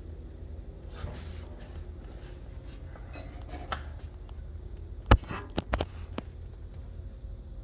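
A few sharp clicks and knocks over a steady low hum: one louder knock about five seconds in, followed by a quick cluster of smaller clicks.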